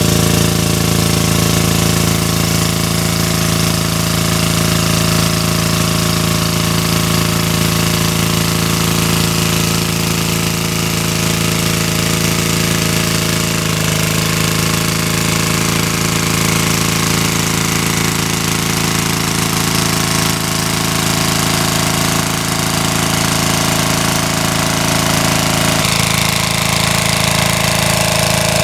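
Small petrol engine of a portable water pump running steadily at a constant speed, with a rattly engine note, as it draws pond water up through its suction hose.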